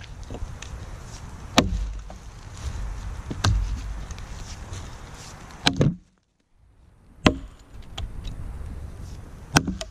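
A vintage Kelly True Temper Wood Slasher, a Dayton-pattern boy's axe, chopping into a felled log: five sharp strikes about two seconds apart. The sound cuts out briefly about six seconds in.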